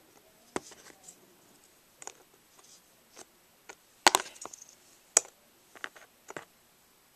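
Plastic Lego bricks clicking and knocking together as they are stacked by hand: a handful of sharp clicks spread a second or so apart, the loudest cluster about four seconds in.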